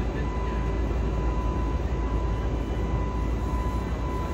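Steady cabin noise inside an Airbus A320neo: an even low rumble with a thin, steady high whine over it.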